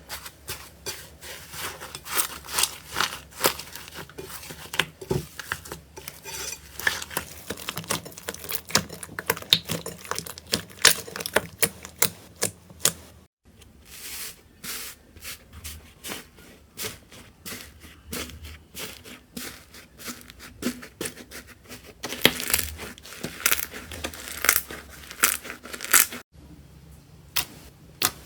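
Slime being squeezed and poked in close-up, with dense, irregular crackling and popping clicks. The sound cuts off abruptly twice, about halfway through and near the end.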